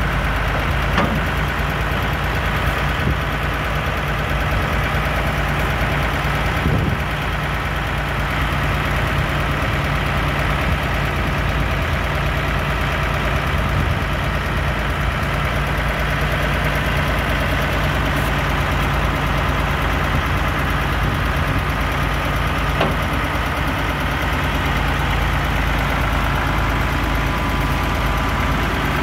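Case 1070 tractor's diesel engine idling steadily.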